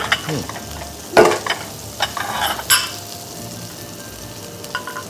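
Two pieces of veal frying in a pan of hot fat, a steady sizzle throughout. Several louder sharp noises break in over the first three seconds.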